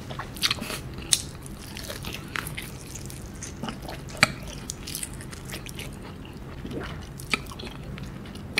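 Close-up biting and chewing of fried chicken coated in Samyang hot sauce, with meat pulled off the bone and a few sharp crunches standing out, the loudest about one second and about four seconds in.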